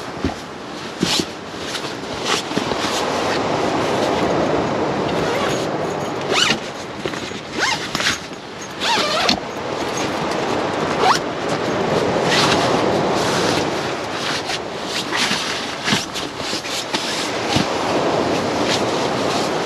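Nylon tent fabric and a sleeping bag stuff sack rustling as they are handled in a rooftop tent, with many short zip-like rasps and clicks from zippers and compression straps. A steady rush of wind swells and fades underneath.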